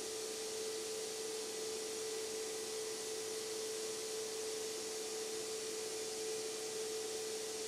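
Steady background hiss with a steady mid-pitched hum, unchanging; the hum cuts off at the end.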